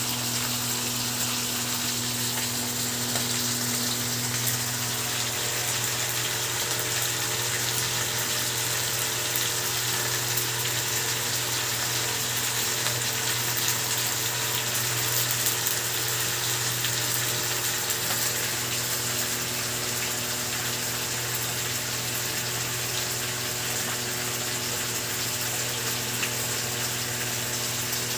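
Steady running water with a low, steady hum under it.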